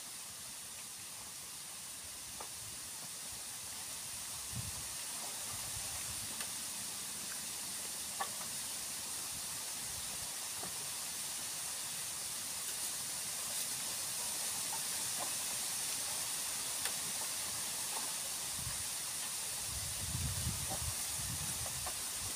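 Steady high-pitched outdoor hiss, slowly getting louder, with a few faint ticks and some low rumbles near the end.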